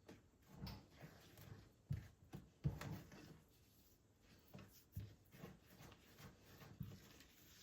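Faint, scattered light knocks and handling noises, about a dozen soft taps and thuds spread unevenly.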